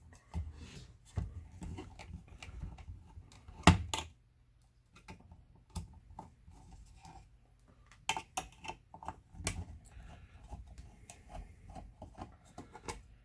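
Irregular light clicks, taps and knocks from handling the Apple IIe power supply and its parts on a workbench. There is one sharp, louder knock just under four seconds in.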